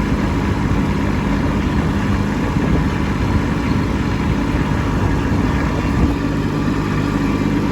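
Kubota B2601 compact tractor's three-cylinder diesel engine running steadily, heard from the operator's seat, with a slight change in its note about six seconds in.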